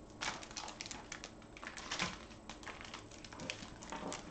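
Rustling and crinkling of a diamond painting canvas and its plastic covering as hands slide and lift it on a table, with irregular short crackles and taps, the sharpest about two seconds in.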